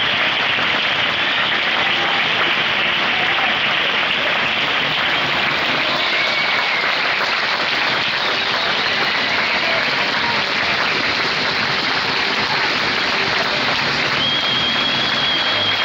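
Arena crowd applauding steadily, with hand claps close by, as a badminton match finishes. A steady high tone sounds briefly at the start and again near the end.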